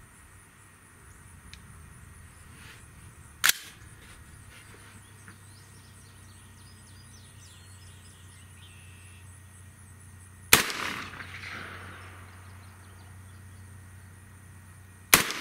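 Three shots from a .300 Blackout rifle firing subsonic 178-grain ELD-X handloads, which are too slow for a bullet crack. The shots come about three and a half seconds in, about ten and a half seconds in, and right at the end. The last two ring on briefly in an echo.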